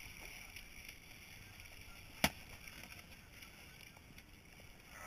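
Faint water sloshing around a landing net holding a fish at the side of a boat, with one sharp knock about two seconds in.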